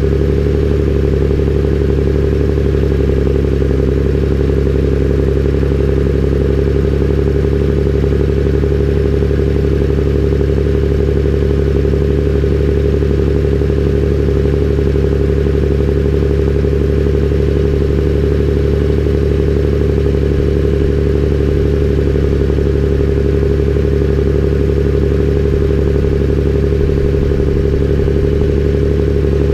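Belarus MTZ-2022.3 tractor's diesel engine running at a steady speed as the tractor drives along, its note holding level throughout and just starting to drop at the very end.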